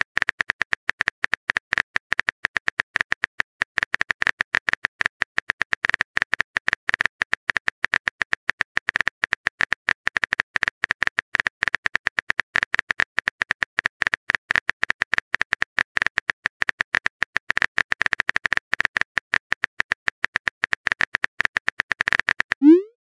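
Rapid smartphone keyboard typing clicks, the texting-app sound effect played while a message is typed, several a second at an even level. Just before the end a short rising tone sounds, the message-sent chime.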